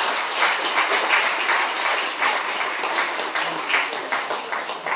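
Audience applauding: dense clapping from many hands that fades near the end.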